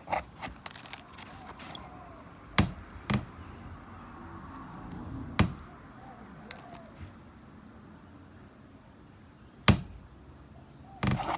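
Rough opal pieces clacking as they are picked up and set down on a hard surface: a string of sharp, separate knocks at irregular intervals, a few louder than the rest.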